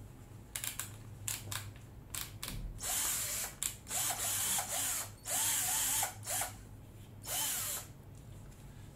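Hitachi 10.8 V cordless drill/driver run in a string of short trigger pulls, its motor whirring up and dropping off each time, about eight times.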